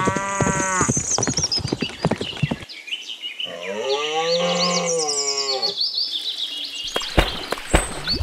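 Cow mooing: a short moo at the start and a longer, drawn-out moo about three and a half seconds in, with high chirping above them. Two sharp knocks near the end.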